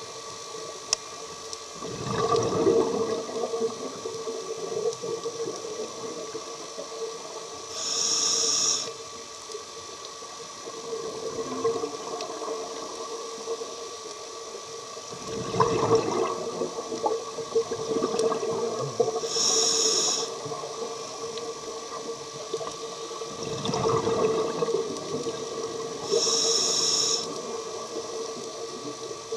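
A scuba diver breathing through a regulator underwater: three short, hissing inhalations about a second long and bubbly exhalations between them, a breath roughly every eight seconds, over a steady hum.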